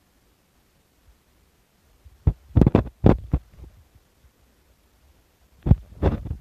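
Handling noise on a handheld camera: a quick cluster of about five sharp thumps and knocks about two seconds in, then two or three more near the end, with near silence between.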